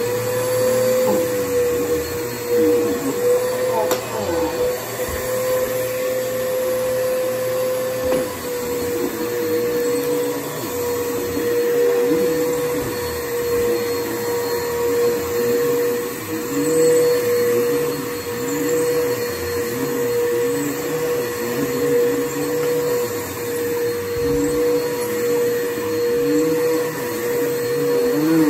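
Upright vacuum cleaner running over a thick shag rug: a steady high motor hum, with a lower note that wavers up and down every second or two as the cleaner is pushed back and forth through the pile.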